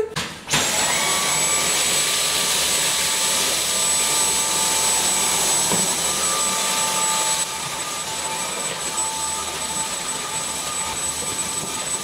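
Dyson Cyclone V10 cordless stick vacuum switched on about half a second in, its motor running up to a steady high whine over a rush of air as the motorhead floor tool sucks up spilled breakfast cereal from a tiled floor. It runs a little quieter from about seven seconds in.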